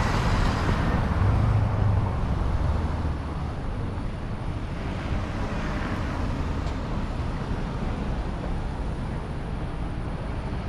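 Road traffic on a busy city street: a steady rumble of passing cars, louder for the first few seconds, then settling.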